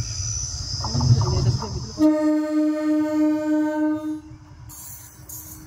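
MEMU electric train's horn sounding one long, steady blast of about two seconds as the train approaches, over the low rumble of the train on the track.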